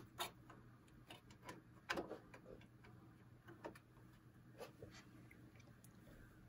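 Hard-drive trays of a Synology RackStation RS815+ NAS being pushed into their bays and seated: a scattered series of faint clicks and knocks, the sharpest about two seconds in.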